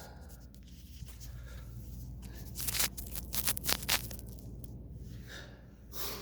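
A man's short, hard breaths and sniffs through the nose while lifting a dumbbell, a quick run of them about halfway through, over a low steady hum.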